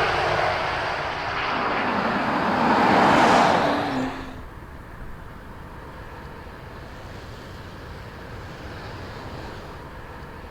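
A car driving close by, its engine and tyre noise loud and swelling for about four seconds, then dropping off abruptly to a quieter steady road noise.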